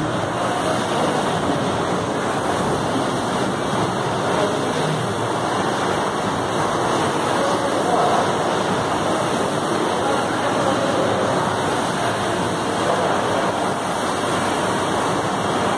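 Air-resistance rowing machine's flywheel fan whooshing steadily as an athlete rows hard.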